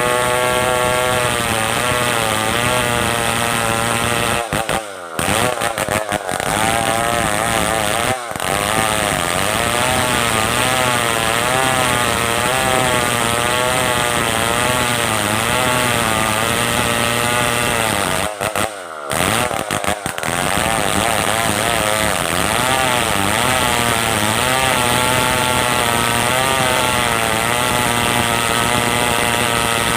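Stihl 070 two-stroke chainsaw running under load while ripping a log, its engine pitch wavering up and down as the cut bites. The sound breaks off briefly a few times.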